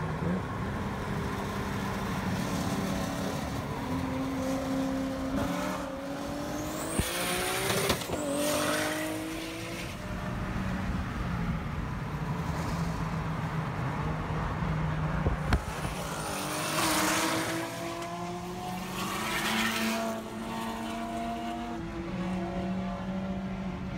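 Cars racing at full throttle, among them a Mk4 Toyota Supra: their engines rev up through the gears, the pitch climbing and then dropping back at each shift. Loud hissing bursts come around a couple of the shifts, and a thin high whistle rises about seven seconds in.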